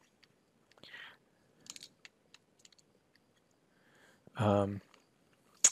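Faint scattered clicks and ticks of a stylus on a pen tablet while an equation is handwritten, ending with one sharp click. A short spoken word breaks in about four and a half seconds in.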